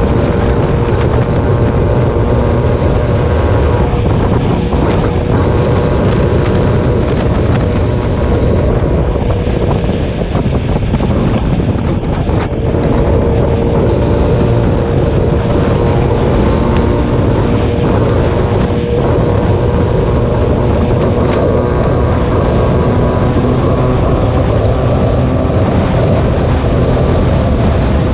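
A vehicle driving at road speed: a steady engine note under heavy wind buffeting on the microphone.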